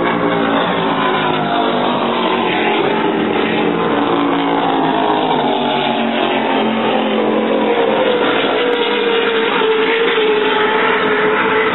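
Offshore racing powerboat's engines running at speed as it passes, the engine note falling in pitch as it goes by.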